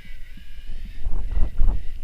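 Wind buffeting the microphone in heavy low gusts, strongest in the second half, over the high whine of the electric mountain bike's motor while riding.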